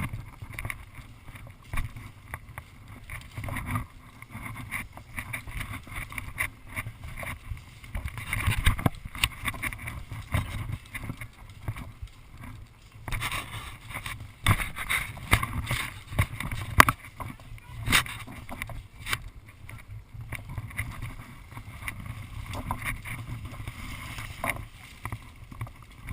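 Low steady rumble of wind and handling on a carried camera, with scattered sharp clicks and rustles throughout, a few louder ones standing out.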